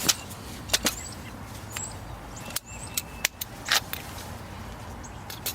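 Scattered sharp clicks and knocks of an airsoft rifle being handled as its suppressor is taken off.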